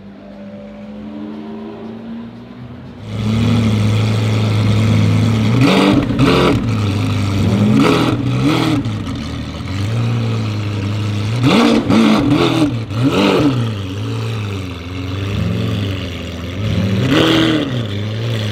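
Lamborghini Aventador SV's naturally aspirated V12 with a straight-pipe Fi exhaust, idling loudly and blipped again and again, each rev rising and falling quickly, in clusters with sharp cracks at the peaks. For the first three seconds, before it, the same car is heard faintly driving off.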